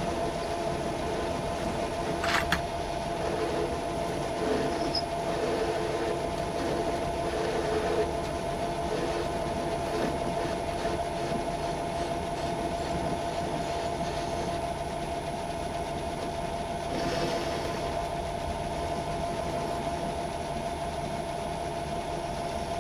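Myford metal-turning lathe running steadily with a constant hum while roughing down a metal workpiece, the cutting tool scraping over the surface. A sharp click sounds about two seconds in, and a short hiss comes about seventeen seconds in.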